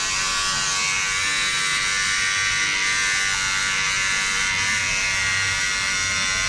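Electric pet hair clipper running with a steady buzz.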